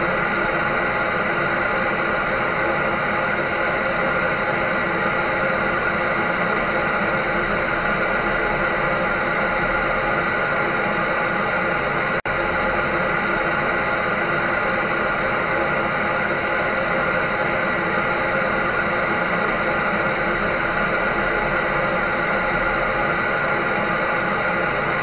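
Clothes dryer running: a steady whooshing hum with a constant motor drone, broken once by a very short dropout about halfway through.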